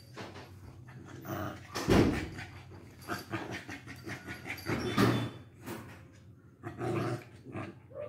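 Two Lhasa Apsos play-fighting, growling and panting in uneven bursts, with louder outbursts about two and five seconds in.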